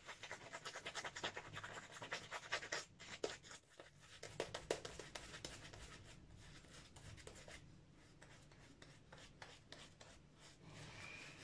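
Shaving brush scrubbing lather over a bearded face and neck: quick scratchy bristle strokes, dense for the first few seconds, then softer and sparser.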